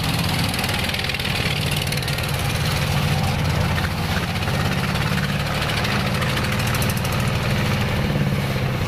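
Engine of a wooden river boat running steadily under way, a low, fast-pulsing engine note, with a hiss of water rushing past the hull.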